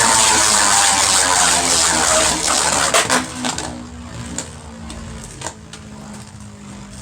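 Two Beyblade Burst spinning tops whirring and scraping across a plastic stadium, with a whine that falls in pitch as they slow and several sharp clacks as they hit each other. The whir dies down after about three seconds.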